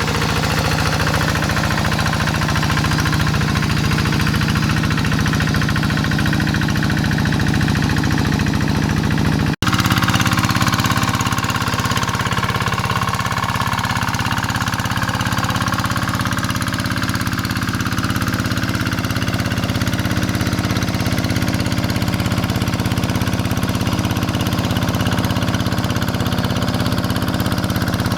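Kubota single-cylinder diesel engine of a two-wheel hand tractor running steadily while working a wet paddy field with a harrow. The sound cuts out for an instant about nine and a half seconds in, then runs on at a slightly different pitch.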